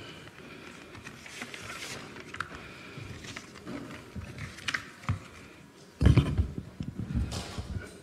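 Faint rustling and small clicks, then, about six seconds in, a louder stretch of low bumps and rubbing from a podium microphone being handled.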